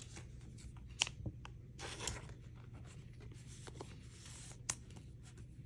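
Trading cards being handled: faint rubbing and sliding of card stock and plastic sleeves, with a few light clicks, the sharpest about a second in and another near the end.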